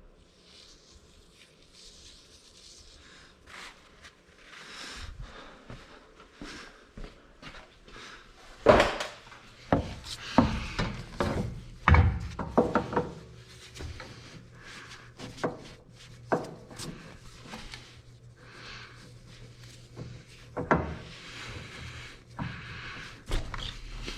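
Hands working with metal parts and tools during a skid steer oil and filter change: scattered knocks and clunks with rubbing and scraping between them, the loudest two hits about nine and twelve seconds in.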